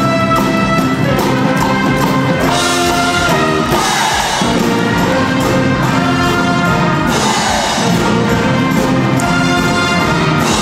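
A band with trumpets and trombones playing music, brass to the fore.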